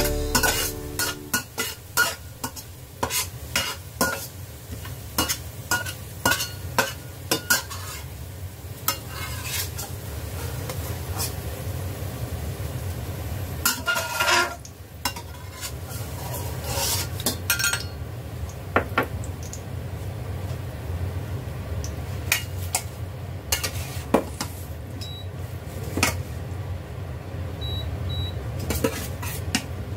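A metal spoon clinking and scraping against a stainless steel pot as sliced garlic is stirred and lifted out of hot oil, over a steady sizzle of the frying garlic. The clinks come thick and fast in the first half and thin out later.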